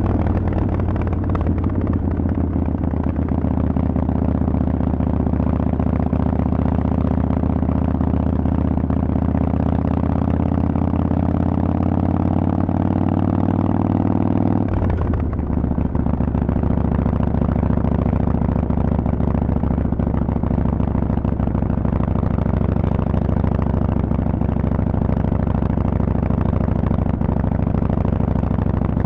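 Harley-Davidson Forty-Eight 1200 air-cooled V-twin running loud through Vance and Hines exhaust pipes. Its note climbs slowly for about half the time, drops suddenly, then holds steady.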